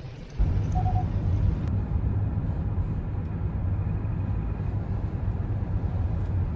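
Steady low rumble of a vehicle, starting suddenly about half a second in.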